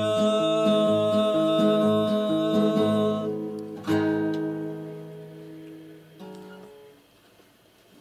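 End of a song on acoustic guitar: a held final sung note over a strummed chord stops about three seconds in, then a last strum or two ring out and fade away.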